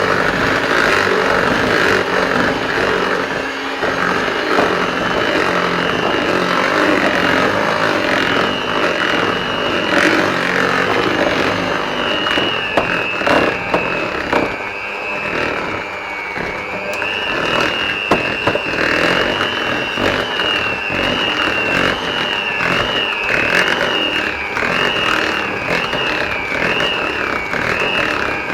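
Electric hand whisk running while beating flour into a creamed spread, sugar and egg mixture; its motor whine wavers and sags as the mixture stiffens into a dough, with the beaters knocking against the bowl.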